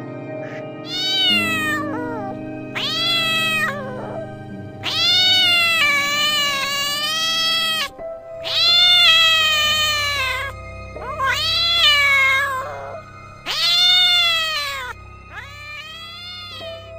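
Domestic cat meowing repeatedly: about six long, drawn-out meows that rise and fall in pitch, the longest lasting about three seconds. Background music plays underneath.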